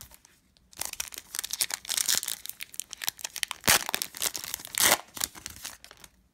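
Foil wrapper of a trading-card pack being torn open and crinkled by hand, a dense crackly rustle with two sharper crackles near the fourth and fifth seconds.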